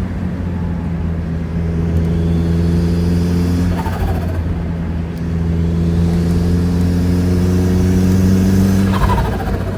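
Turbocharged Mazda Miata four-cylinder pulling under boost, then turbo flutter twice, about four seconds in and again near the end: each time the throttle closes, a falling whoosh with a fast chattering flutter, the compressor surging. The engine picks up and pulls again between the two lifts.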